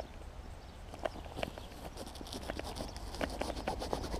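Irregular light knocks and scrapes of stones and crumbling soil as a hand searches through stony ploughed earth close to the microphone, over a low steady wind rumble.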